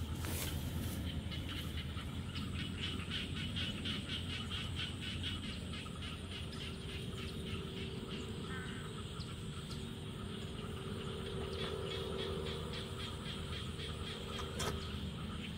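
Rice-paddy animal chorus: a rhythmic pulsing call repeating several times a second, over a steady high-pitched buzz.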